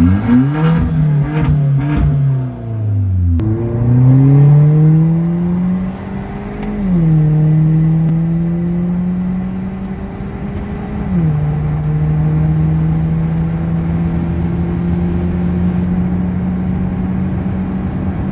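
Car engine pulling away and accelerating through the gears: its pitch climbs, drops sharply at two upshifts, then holds steady while cruising. The engine has just been fitted with new iridium spark plugs.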